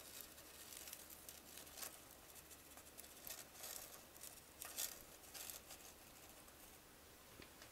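Aluminium foil crinkling faintly in a series of short rustles as foil-wrapped pieces are handled and set down.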